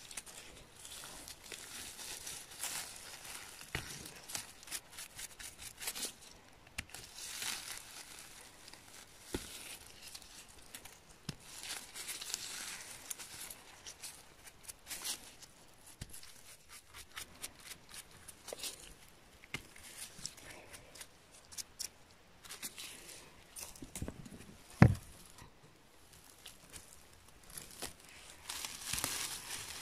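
Rustling and crinkling of gloved hands handling chanterelle mushrooms over moss, with a knife scraping and trimming the stems and a brush sweeping off debris, in spells of scraping and small clicks. A single sharp thump about three-quarters of the way through is the loudest sound.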